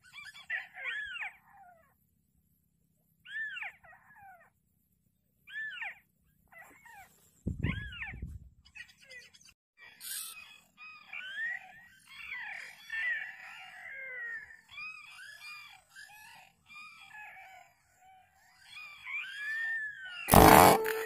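White-breasted waterhens (ruak-ruak) calling, repeated falling calls that come a few at a time at first and then many overlapping over the second half. A dull low thump comes about a third of the way in, and near the end there is one sharp air rifle shot with a brief ringing tone after it.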